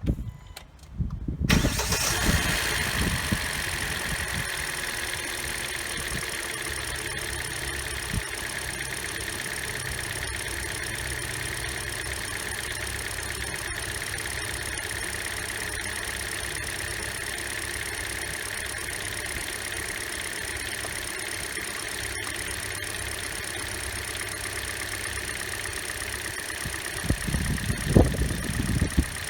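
Hyundai Elantra four-cylinder engine cranked by the starter, catching about a second and a half in and then idling steadily: a test start after new ignition coils and spark plugs. A few knocks near the end.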